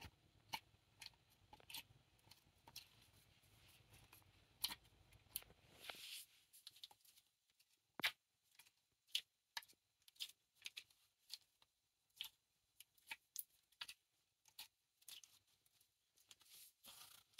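Glitter slime squished and stretched between bare toes, making faint sticky clicks and pops at irregular intervals.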